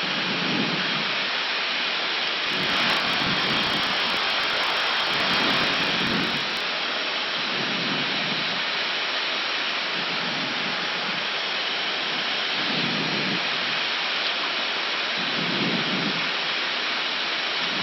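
Steady rushing hiss of airflow and ventilation on the Airbus A319 flight deck during an idle-thrust descent, slightly brighter for a few seconds near the start.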